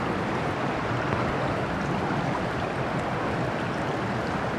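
Shallow creek water running steadily over rocks and a small riffle.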